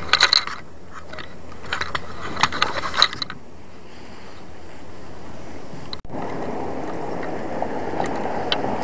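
A handful of sharp metallic clicks and rattles from a spinning reel and rod being handled, in the first three seconds, then steady outdoor noise. The sound drops out briefly about six seconds in.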